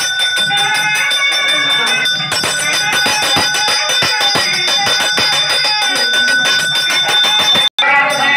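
Temple bells ringing continuously, mixed with music. From about two seconds in, a fast run of sharp strikes joins the ringing, and the sound cuts out for an instant near the end.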